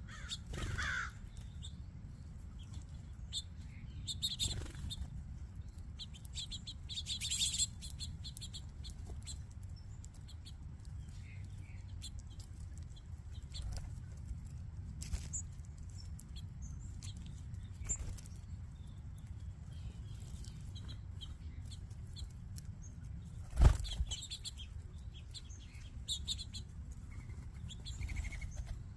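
Flock of small backyard birds chirping and fluttering, with flurries of wing flaps over a steady low rumble. A single sharp knock sounds about two-thirds of the way through.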